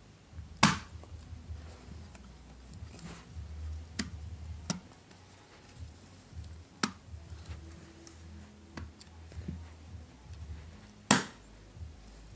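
Sharp clicks and light knocks of hands fitting memory modules into a Mac Pro's memory slots, with two loud snaps, one about half a second in and one near the end.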